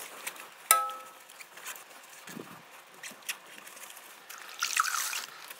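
A soapy wash mitt scrubbing a chrome wheel: wet rubbing and small clicks throughout. There is a sharp tap that rings briefly about a second in, and a louder wet swishing near the end.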